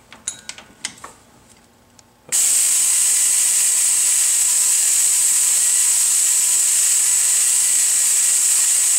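Pneumatic air ratchet running on a long extension to undo a 14 mm bolt: a few light clicks as the socket is seated, then a loud, steady hissing whir of the tool and its exhaust air starting about two seconds in and holding even.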